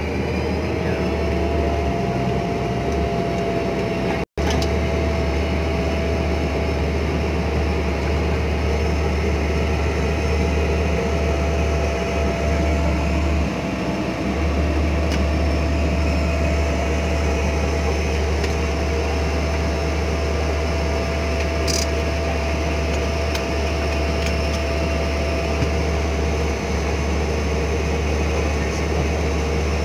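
Cabin noise of a single-engine turboprop running while the aircraft taxis: a steady engine drone with a whine that rises slightly in the first second and then holds. The sound breaks off very briefly about four seconds in.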